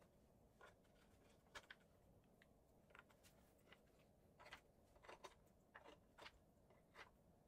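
Near silence, with a few faint light taps as short clear acrylic tubes are set into the drilled holes of a stained cherry board.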